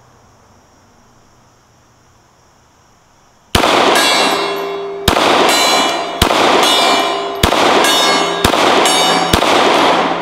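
Six 9mm shots from a Glock 19 Gen 5 pistol, about a second apart, starting three and a half seconds in. Each shot is followed by steel targets ringing, with the ringing carrying on between shots.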